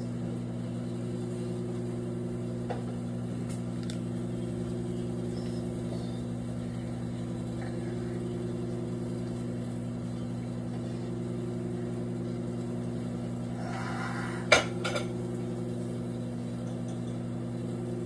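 Microwave oven running with a steady hum while heating a whole apple. About three-quarters of the way through, a brief crackle and one sharp pop, with a smaller click just after, as the apple sizzles and bursts inside.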